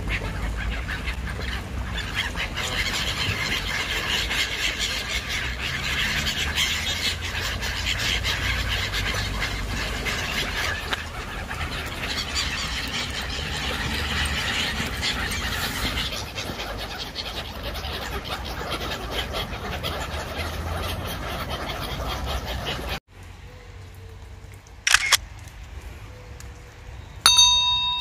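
A large flock of gulls calling together in a dense, continuous chatter. Near the end it cuts off suddenly; a single click and a bell-like chime follow, the sound effects of an on-screen subscribe-button animation.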